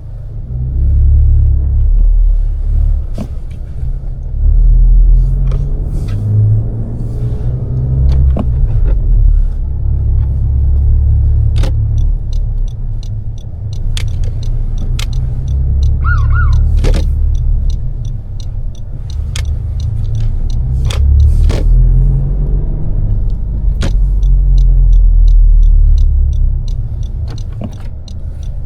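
2020 Honda Civic Si's 1.5-litre turbocharged four-cylinder engine running through the gears in stop-and-go city driving, a deep sound that swells and falls with throttle and speed. A few sharp clicks are heard over it.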